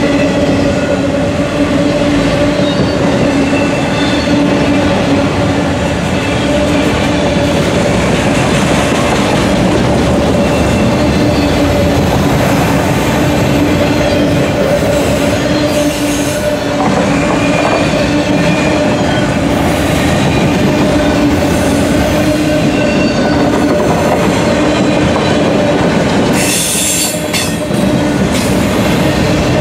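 Freight train of autorack cars rolling past close by: steel wheels rumbling and clicking over the rails with a steady whine. A brief burst of hiss comes near the end.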